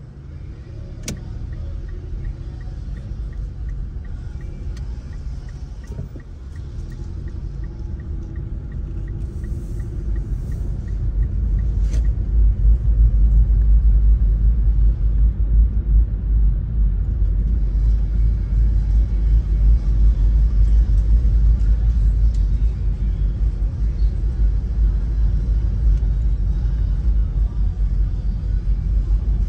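Car driving at low speed, heard from inside the cabin: steady low road and engine rumble that swells noticeably about twelve seconds in as the car gets moving, with a faint regular ticking during the first half.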